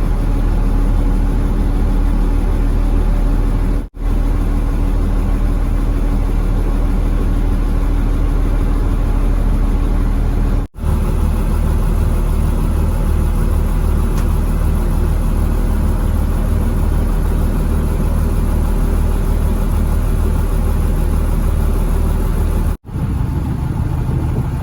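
A fishing boat's engine running steadily and loudly, broken by three brief dropouts where the footage is cut.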